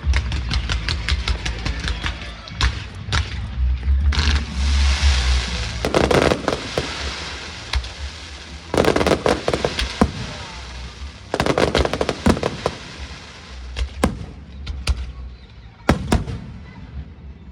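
Fireworks show: aerial shells bursting in rapid volleys of sharp bangs, with stretches of dense crackling lasting a second or two, over background music.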